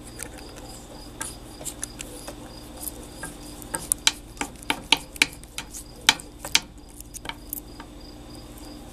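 Crickets chirping steadily in a fast, even pulse, over a run of sharp clicks and small metallic taps from the stainless-steel flashlight being handled, thickest in the middle of the stretch.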